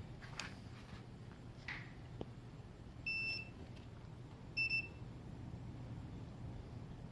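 Multimeter continuity beeper sounding as the probes are put across capacitors on a TV panel board in a check for a short. It gives one beep of about half a second a little after three seconds in, then a quick double beep near five seconds. There are faint taps of the probes earlier.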